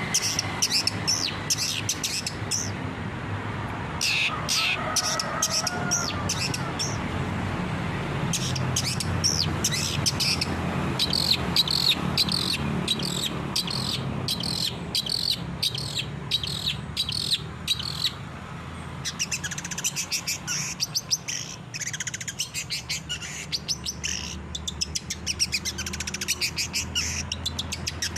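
Long-tailed shrike (cendet) singing a rapid, varied song of sharp chirps and chattering notes, which comes in very fast runs in the second half, over a steady low hum.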